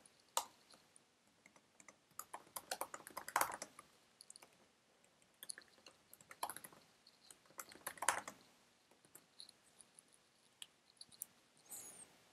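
Faint typing on a computer keyboard: short irregular bursts of keystrokes with pauses between them.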